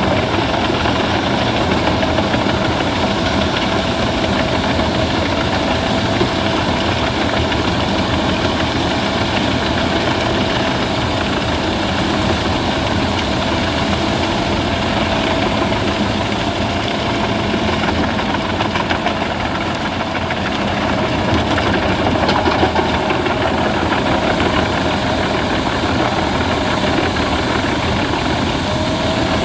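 Albach Diamant 2000 wood chipper running steadily while chipping branches, its engine and cutting drum making a constant mechanical noise with a steady tone and a faint high whine. The sound sags briefly about twenty seconds in, then picks up again.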